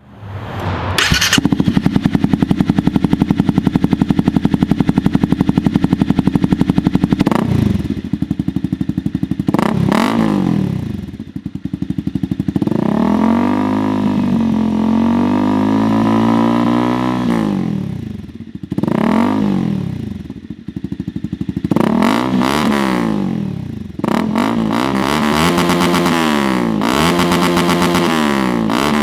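Honda CBR300R's single-cylinder engine through an SC-Project aftermarket exhaust. It runs steadily at first, then is revved over and over in quick throttle blips, with one longer rev held for a few seconds before dropping back, and crackles as the revs fall.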